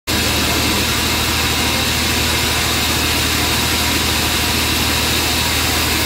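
Band sawmill running: a steady machine hum under a loud, even hiss.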